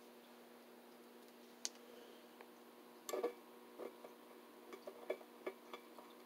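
Faint irregular clicks and ticks of a small hand screwdriver turning a tiny 4-40 screw into a freshly tapped hole in aluminium plate, with a short clatter about three seconds in, over a faint steady hum.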